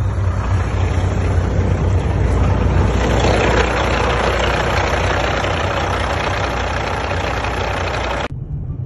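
Heavy diesel semi-truck engine running loudly with a deep steady rumble, until it cuts off abruptly near the end.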